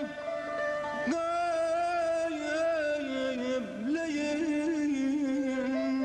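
Persian classical chamber music: a held melody line that glides between notes, with a sharp new note about a second in.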